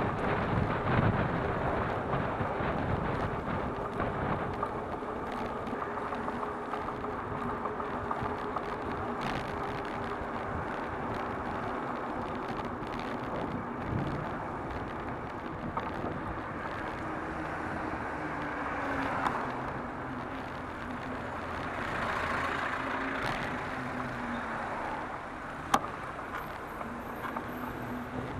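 City street traffic heard from a moving bicycle: a steady wash of car noise with a faint whining tone that slowly falls in pitch in the second half. A single sharp click comes near the end.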